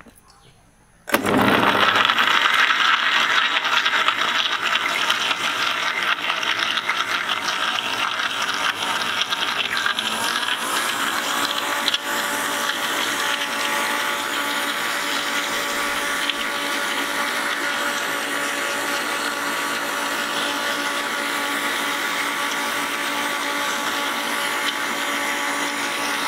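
Electric blender switching on about a second in and running steadily, churning milk, ice cream and chocolate pieces. It is rough and uneven at first, then evens out to a steady whine as the mixture turns smooth.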